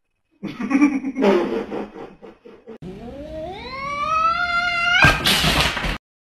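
A cat yowling: one long drawn-out yowl that climbs steadily in pitch over about two seconds, broken off by a harsh hiss lasting about a second. Before the yowl, about two seconds of loud, rough, noisy sound.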